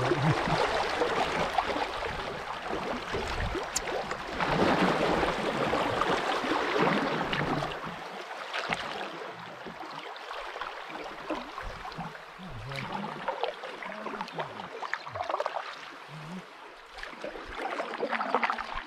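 River water rushing and splashing around an open canoe in a shallow riffle, with paddle strokes in the water. The rush is loudest for the first eight seconds or so, then eases to softer lapping with scattered small splashes.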